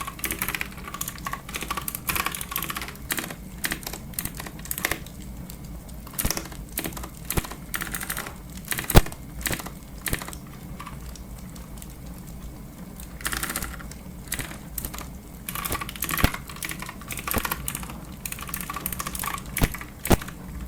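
Clicky computer keyboard typing in bursts of rapid keystrokes, with short lulls and one louder key strike about nine seconds in.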